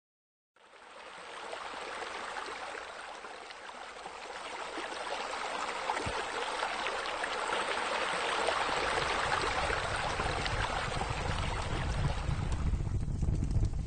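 Water from a raised spa spilling into a swimming pool: a steady splashing rush that slowly builds. Near the end it gives way to a fire pit burning, a low rumble with crackles.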